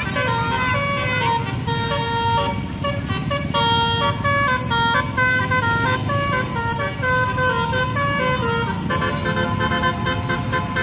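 Bus telolet horn, a set of trumpet horns playing a melody of stepped tones, over the bus engine running.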